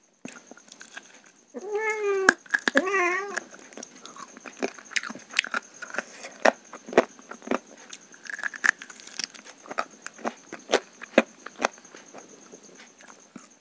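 A cat meows twice in quick succession about two seconds in, each call rising and falling in pitch. Between and after the meows come wet clicks and squishes of fingers mixing rice and curry on a steel plate.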